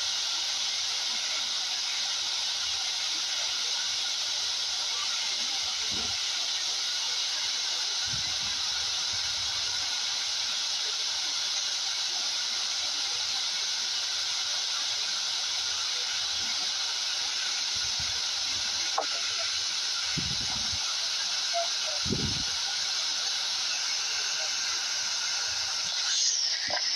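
Steady hiss of airliner cabin noise, with a few soft low thumps.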